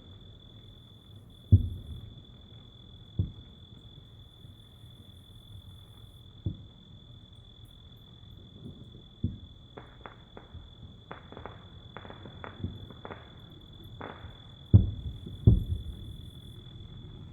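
Distant fireworks going off: about half a dozen low booms at irregular intervals, with a quick run of crackling bursts in the middle. Behind them, night insects sing in a steady, high drone.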